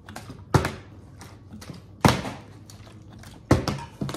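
Plastic water bottle being flipped and landing on a countertop: three hard thuds about a second and a half apart.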